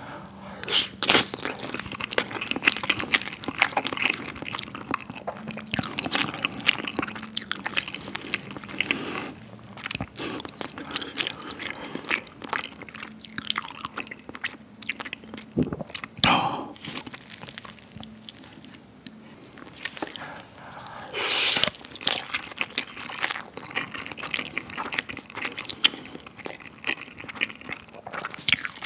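Close-miked wet chewing and lip smacking of marinated raw crab (ganjang gejang and spicy yangnyeom gejang) with rice, full of short sharp wet clicks.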